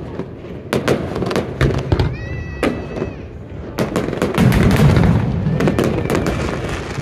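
Aerial fireworks bursting: sharp bangs and crackles, with a brief high pitched tone about two seconds in, then a dense, louder run of overlapping bursts from about four seconds in.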